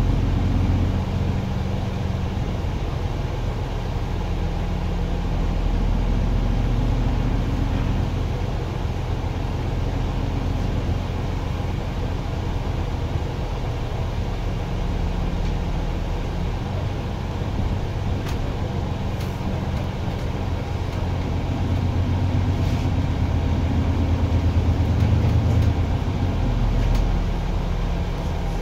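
Cabin noise of a MAN Lion's City 12 EfficientHybrid city bus under way: its 9-litre diesel engine running with a steady road hiss, the engine note rising and falling a few times and loudest a little before the end. A few light rattles tick in the second half.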